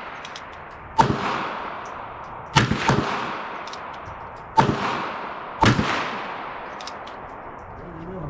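Ruger Super Wrangler single-action .22 revolver firing .22 Winchester Magnum rounds: about five sharp shots, one to two seconds apart, two of them in quick succession near the middle, each trailing off in an echo.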